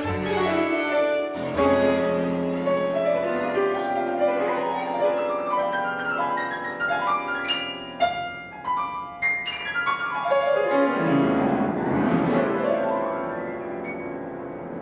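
Live chamber music from piano, violin and cello, with the piano most prominent in quick runs of notes. The sound fades away over the last few seconds.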